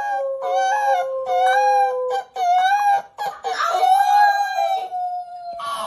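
Dog whining and howling in long, wavering high-pitched cries, with a steady held tone running underneath for the first couple of seconds.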